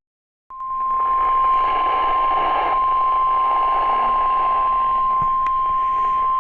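NOAA Weather Radio 1050 Hz warning alarm tone: one steady high tone that starts about half a second in after a brief silence and holds, over radio static. It is the signal that wakes weather-alert receivers before a watch or warning is read.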